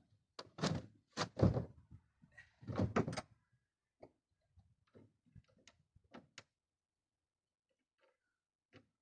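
A few loud knocks and thuds, as of a heavy plastic lid being moved and bumped, followed by scattered light clicks and taps.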